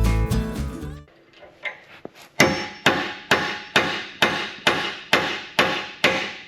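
Music ends about a second in; then a hammer strikes steel over and over with a ringing clang, about two blows a second, knocking out a stuck pin from a skid-loader blade skid.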